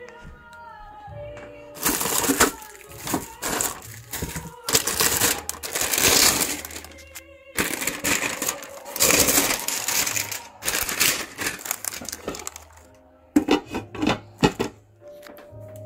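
Clear plastic packaging film crinkling and rustling in repeated bursts as the grill is unwrapped, with a few sharp knocks near the end, over quiet background music.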